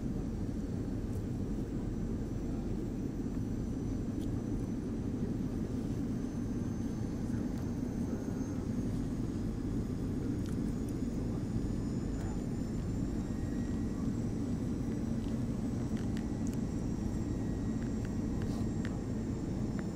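Steady low roar of jet engines and airflow heard inside the cabin of an Airbus A320 in flight, with a faint high whine that drifts slightly upward.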